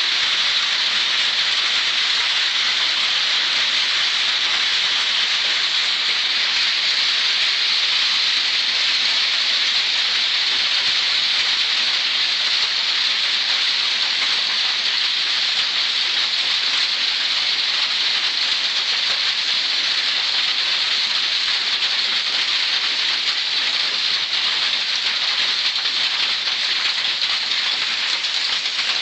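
Heavy rain pouring steadily, a dense even hiss with no breaks.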